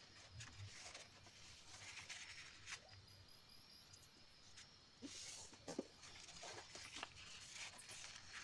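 Faint rustling and sliding of origami paper as hands fold a corner down and press it flat, with a few brief scratchy brushes of fingers on the paper.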